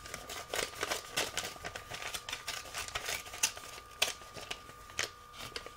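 A mailed envelope being opened and the papers inside handled: irregular paper rustling and crinkling with several sharp snaps.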